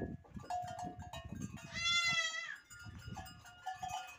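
A young goat bleating once, loudly, about two seconds in, a single wavering call just under a second long.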